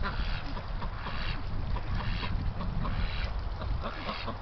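Domestic ducks quacking in short calls about once a second, over a steady low rumble of wind on the microphone.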